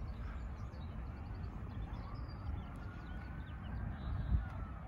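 Open-air ambience: a steady low rumble with small birds chirping, and a distant siren slowly wailing up and down from about two seconds in.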